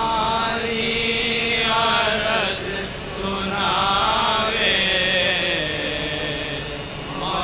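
A voice chanting a religious recitation in long, wavering melodic phrases, with a short break about three seconds in.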